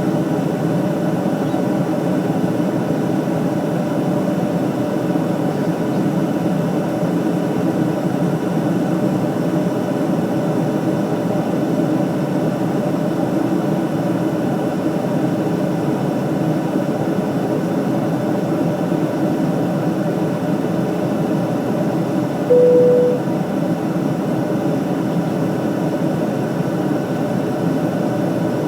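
Steady airliner cabin noise in flight: the even hum of the jet engines and airflow, unchanging throughout. About 22 seconds in, a brief single tone sounds once.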